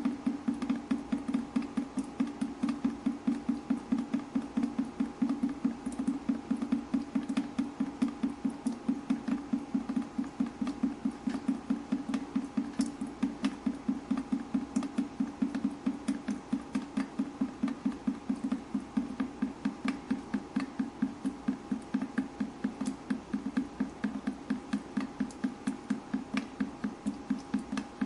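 Fast, even dripping of water, about four to five drips a second, each drip a short low knock. A faint steady hum lies underneath.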